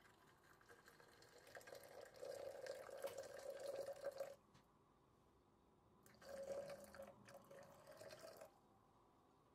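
Liquid being poured into a container in two spells, each lasting a few seconds.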